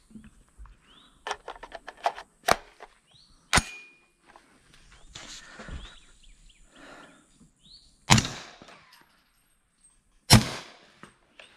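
Metallic clicks of an AR-15 in 300 Blackout being handled and readied, then two shots about two seconds apart, each followed by a short echo. The rifle wears a suppressor.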